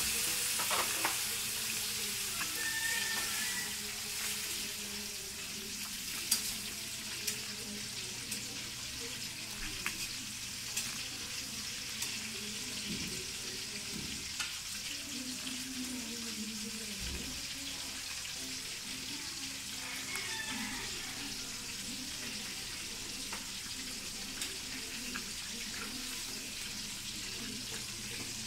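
A cat eating wet food from a plastic bowl: small wet chewing clicks scattered over a steady hiss.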